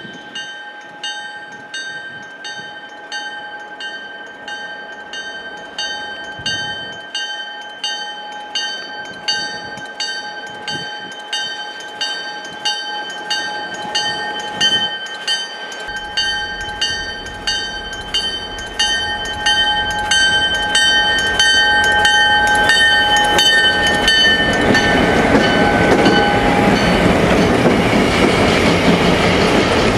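Railway grade-crossing bell ringing steadily, about two strikes a second. Past the halfway mark the low rumble of the EMD GP38-2 Geep locomotives comes in, and near the end the passing locomotives and wheels grow loud and drown the bell.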